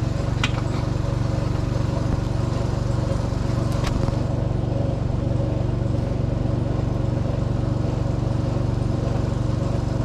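Steady low drone of a motor running nearby, unchanging, with two light taps about half a second and four seconds in.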